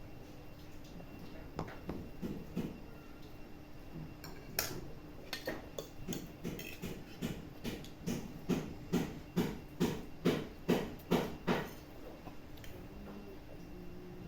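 Rhythmic knocking in a kitchen, a little over two knocks a second, getting louder before stopping suddenly, with some dish and cutlery clatter.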